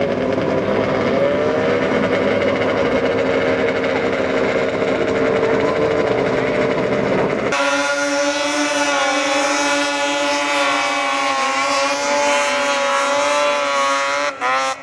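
Snowmobile engines running at high revs as the sleds skim across the water, their pitch wavering up and down. About halfway in, the sound cuts abruptly from a steadier engine drone to this, and near the end the revs climb in a quick rising sweep.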